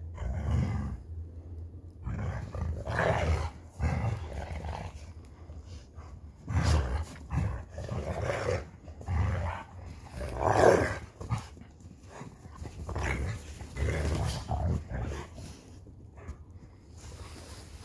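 Wolfdog growling and snarling at two other dogs during rough play, in repeated bouts of a second or two, the loudest about ten and a half seconds in.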